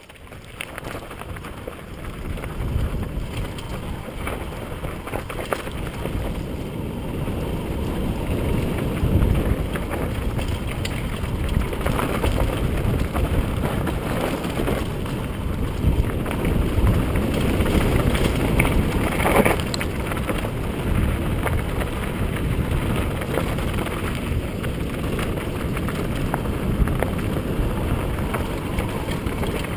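Mountain bike descending a rocky gravel trail: tyres crunching over loose stones and the bike rattling, with wind rushing on the bike-mounted camera's microphone. It grows louder over the first few seconds, then stays steady.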